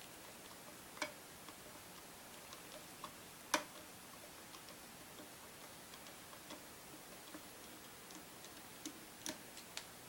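Scattered small clicks and taps of metal tools and rifle parts being handled while the buttstock of a Marlin 336SS lever-action rifle is being taken off. The sharpest click comes about three and a half seconds in, with a few more near the end.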